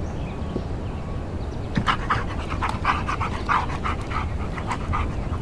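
A dog panting quickly, about four to five breaths a second, starting about two seconds in.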